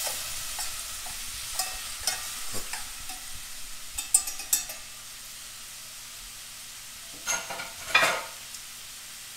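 Chopped onion and garlic with butter sizzling in a hot stainless-steel saucepan while being stirred, with scrapes and clicks of the spoon against the pan for the first half. Then a quieter steady sizzle, broken near the end by two louder knocks.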